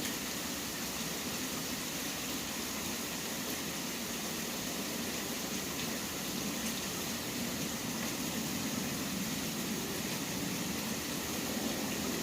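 Steady rain falling, with a low hum of city traffic beneath it that swells slightly in the second half.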